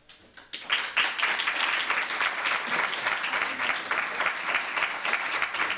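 Audience applauding: a few scattered claps, then the whole room clapping steadily from under a second in.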